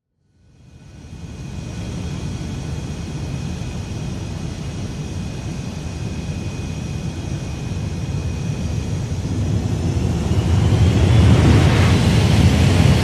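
Aircraft jet engine fading in from silence, a dense rumble with a high whine, growing louder, and the whine rising in pitch about ten seconds in as it nears.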